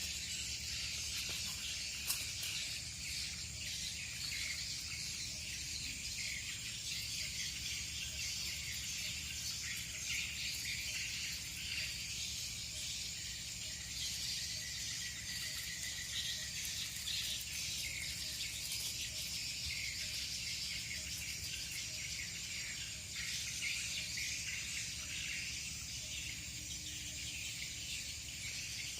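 A steady chorus of insects chirping, a dense high-pitched trilling, over a low rumble, with a single sharp click about two seconds in.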